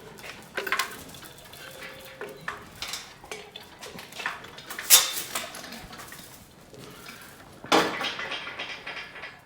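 Metal parts clanking and knocking against each other in irregular strikes, with sharper clangs about five seconds in and again near the end, as steel parts are pulled off and handled during a truck teardown.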